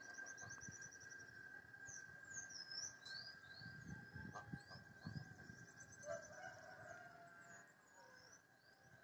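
Faint dawn birdsong: many short high chirps and quick trills, with a lower trill about six seconds in. A steady high-pitched hum runs underneath, and a faint low rumble rises around the middle.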